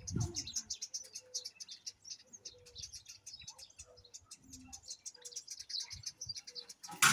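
Small songbirds chirping continuously in a tree, many short high chirps overlapping, with a lower note repeating about once a second. A sudden loud burst of noise comes at the very end.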